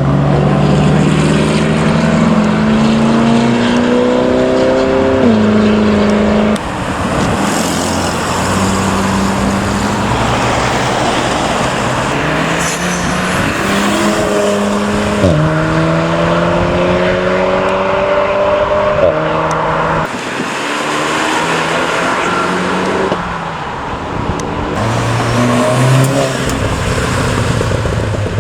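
Car engines accelerating hard, their pitch climbing steadily and dropping at gear changes before climbing again. There are two long pulls, one at the start and one from about fourteen seconds in, with lower, steadier engine sound in between.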